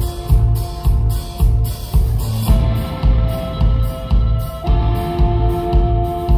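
Live rock band playing instrumentally: electric guitars holding sustained notes over bass and a steady drum beat of about two strokes a second, with cymbals. The chord changes about two and a half seconds in and again near the five-second mark.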